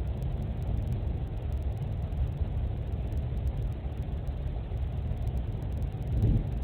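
Thunderstorm heard through a pet camera's microphone: a steady low rumble, swelling slightly about six seconds in.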